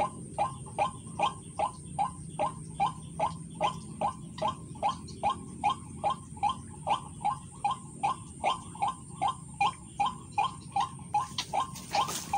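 White-breasted waterhen call: a harsh 'kruak' note repeated evenly, about two and a half times a second. A brief crackle comes near the end.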